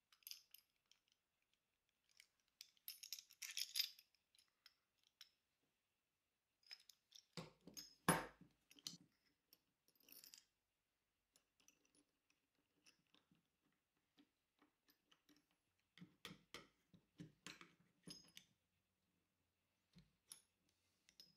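Faint clicks and small metallic clinks of bolts, nuts and an aluminium T-track clamp bar being handled and fitted on a wooden honing jig, with a louder knock about eight seconds in.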